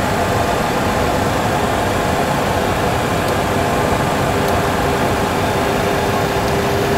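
Steady jet engine and airflow noise of a Boeing 737 Classic flight simulator climbing at set thrust, played through the simulator's sound system. A steady hum joins in about two-thirds of the way through.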